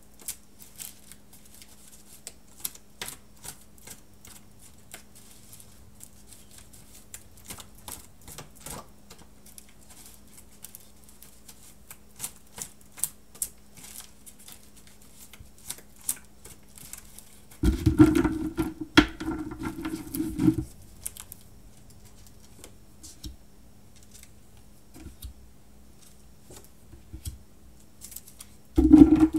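A deck of oracle cards being shuffled by hand: a long run of light, irregular card clicks, with a louder burst of shuffling about eighteen seconds in and again near the end.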